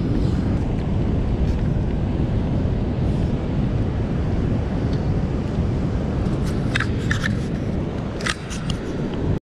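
Wind buffeting the microphone: a steady low rumble, with a few light taps near the end.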